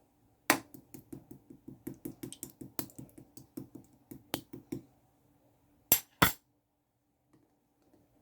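Clear blue slime being worked by hand, giving a quick run of sharp clicks and pops at about five a second, then two louder clicks in quick succession about six seconds in.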